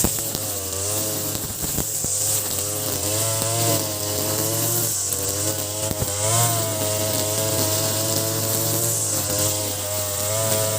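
Ogawa BG330 brush cutter's 33cc two-stroke engine, fitted with a larger 43cc carburettor, running at working speed while cutting grass with a line trimmer head. Its pitch wavers, dipping and recovering under load, most clearly about six seconds in.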